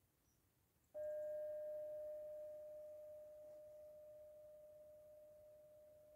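A metal singing bowl struck once about a second in, ringing one steady tone that slowly fades; its fainter higher overtones die away within a couple of seconds.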